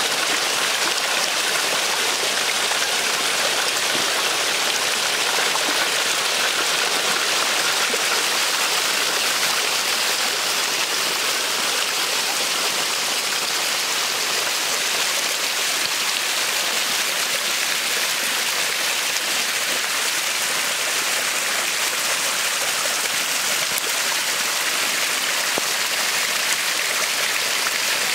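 Small waterfall splashing steadily down rock: thin streams of falling water make an even, hissing splash with little low rumble.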